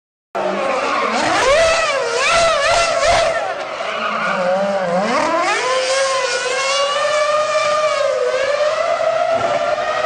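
Formula 1 V10 engine revving, its pitch swinging quickly up and down several times, then climbing and running at a fairly steady high note. There is a brief dropout right at the start.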